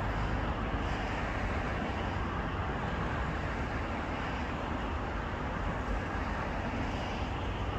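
Steady road traffic noise: an even hiss of passing cars with a low rumble underneath.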